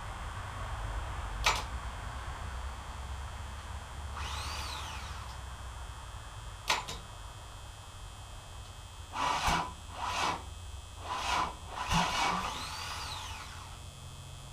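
Faulty starter on an OMC 4.3L V6 marine engine, still bad after its brushes were cleaned. It gives sharp single clicks, brief whines that rise and fall in pitch, and a cluster of four or five short rough bursts, without the engine catching.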